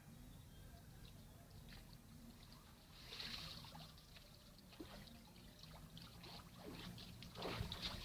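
Faint water splashing and streaming off a cast net as it is gathered up out of shallow water, strongest about three seconds in. Louder splashes of wading come near the end.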